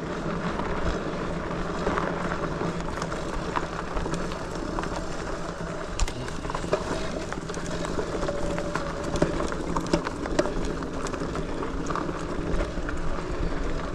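Lectric XPeak 2.0 electric bike ridden over a dirt trail: a steady rolling noise from the tyres with scattered sharp knocks and rattles from the bike over bumps, and a faint steady whine from the motor in the middle.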